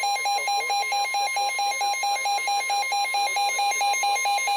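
Weather radio alert tones: a fast electronic alarm beeping about six times a second over a steady high tone, the NOAA Weather Radio 1050 Hz warning alarm tone that comes before a new warning message.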